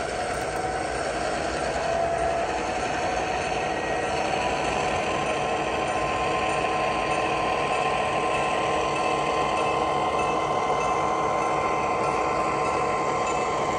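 HO scale model train running on the layout track: a steady mechanical whirring with a few held tones, growing slightly louder over the first couple of seconds and then even.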